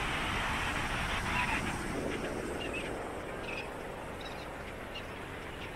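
Busy beach ambience: a steady wash of wind and surf with distant voices of beachgoers, and a few short high-pitched calls or cries in the second half.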